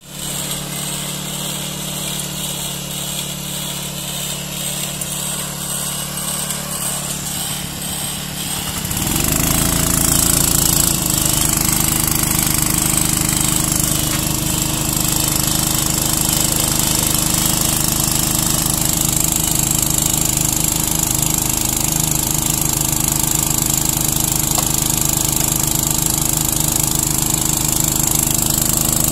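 Well-drilling rig machinery running steadily with a rhythmic mechanical beat. About nine seconds in, a deeper engine note comes in with a brief rise in pitch, and the sound grows louder and stays that way.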